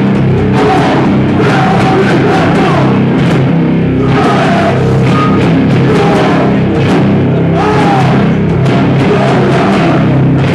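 Hardcore band playing live at full volume: distorted electric guitars, bass and drums, with frequent drum hits.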